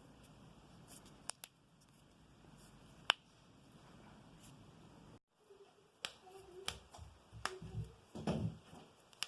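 Knuckles cracking: a few single sharp pops spread out, then a quicker run of pops from about six seconds in, with soft low rustling between them.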